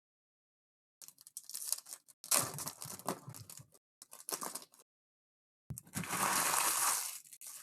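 Foil wrapper of a Panini Select basketball hobby pack crinkling in the hands in short irregular bursts, then a longer, louder rip near the end as the pack is torn open.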